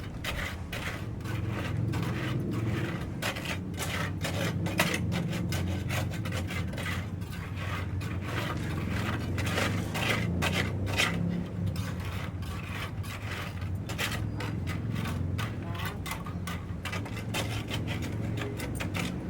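Repeated scraping and rubbing strokes, many to the second, over a steady low hum.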